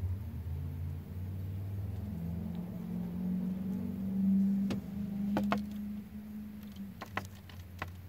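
Vehicle engine hum that starts suddenly and climbs slightly in pitch, then holds steady. Several sharp taps come in the second half, fitting the bird striking the car's tinted window glass.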